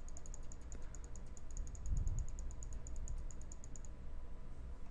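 Faint, rapid high ticking from the computer setup, about eight ticks a second, over a steady low hum; the ticking stops near the end.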